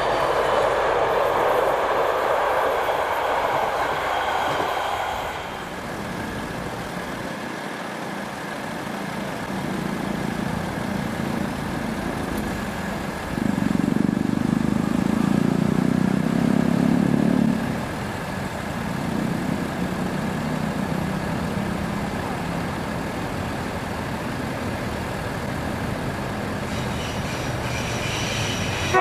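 A train running on the track: loud rolling noise for the first five seconds, then quieter, with a louder low drone for about four seconds midway.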